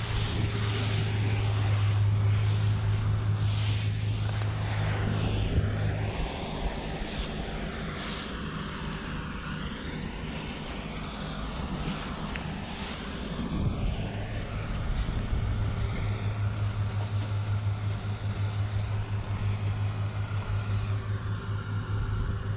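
Engine of harvesting machinery running steadily with a low drone. The drone eases off about six seconds in and comes back strongly around fourteen seconds.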